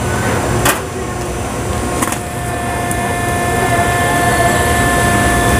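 Buckwheat-noodle extruder press running over a pot of boiling water, a steady mechanical hum and whine as the dough is pressed out into noodles, with a couple of sharp clicks.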